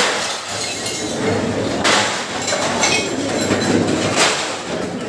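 Metal plates and serving utensils clinking and clattering in a busy communal dining hall, over the steady noise of a crowd. A few sharper clanks stand out, about two seconds in and again about four seconds in.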